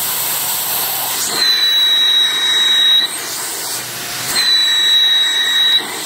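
Vacuum brake bleeder drawing on the caliper's bleeder screw, a steady hiss. Twice it grows louder with a high steady whine for about a second and a half, the first time about a second in and again near the end.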